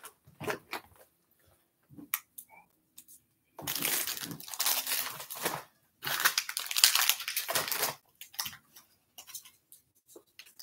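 Wrappers of small fruit chews crinkling and tearing as they are unwrapped by hand: two long spells of crackling about four and six seconds in, with brief rustles and clicks between.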